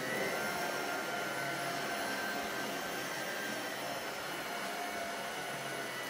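Tineco Pure ONE S11 cordless stick vacuum running on carpet: a steady rush of airflow with a motor whine made of several high tones that waver slightly in pitch.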